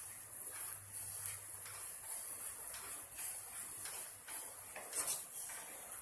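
A spoon stirring jaggery syrup in a kadhai, with light irregular scrapes and knocks against the pan over a steady high hiss from the pan on a full gas flame.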